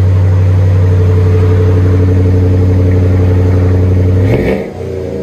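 Chrysler Aspen's 5.7-litre HEMI V8 running through a Flowmaster Super 44 muffler with the resonator deleted, heard at the tailpipe. It runs steadily at raised revs, then about four seconds in the pitch and level drop as it falls back to idle.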